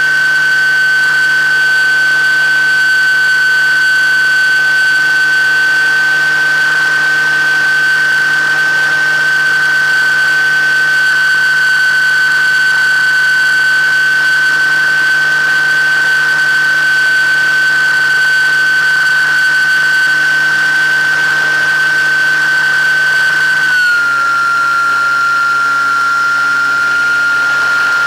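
The motor and propeller of an FPV model aircraft, recorded by its onboard camera: a loud, steady high-pitched whine over a lower hum, stepping slightly lower in pitch about 24 seconds in.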